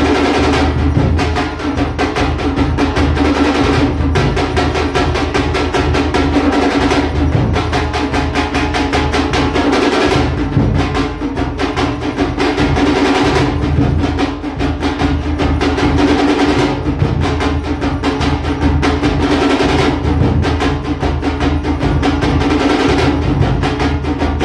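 Festival drum music: fast, continuous rhythmic drumming with a steady held tone running under it.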